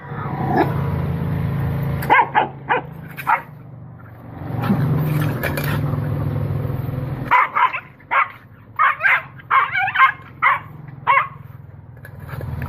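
Animals in a fight: a low, continuous growl, broken by bursts of short, sharp yelping calls. The calls come in a quick run through the second half.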